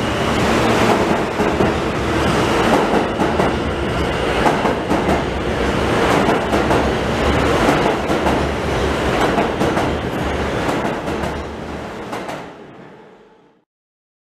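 New York City Subway F train running along the station platform: steady rumble and rail noise, with the wheels clicking over rail joints. It fades out to silence near the end.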